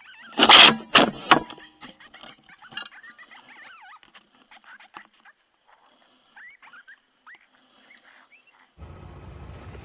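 Coyotes yipping and howling: two loud barking outbursts in the first second and a half, then fainter, wavering yips that rise and fall in pitch.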